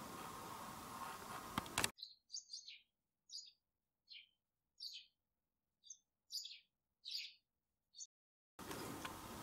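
Faint steady hiss broken by two sharp clicks just under two seconds in. Then comes a bird-chirping sound effect: about a dozen short, high chirps spread over six seconds against dead silence, a cue for morning.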